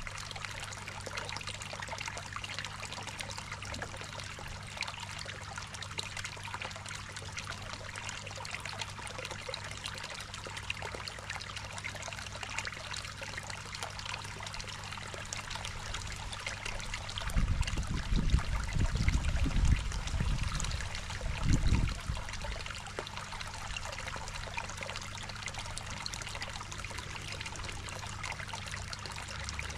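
Water trickling and splashing steadily into a garden koi pond, over a steady low hum. A low rumble rises for a few seconds a little past the middle, then dies away.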